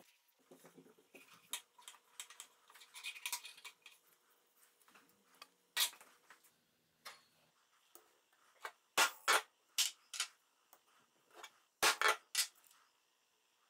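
Light clinks and taps of thin aluminum grappling-hook pieces being handled, then two groups of about three sharp metallic strikes on a steel punch, pressing the hook's interlocking tabs together to lock the pieces in place.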